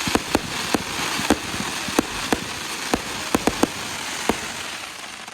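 Firework fountain spraying sparks with a steady hiss, broken by scattered sharp crackles and pops. The hiss dies away near the end.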